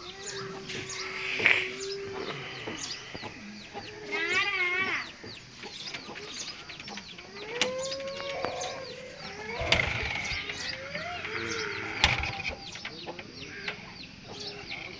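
Chickens clucking and calling, with small birds chirping in the background. There are two sharp knocks, about ten and twelve seconds in.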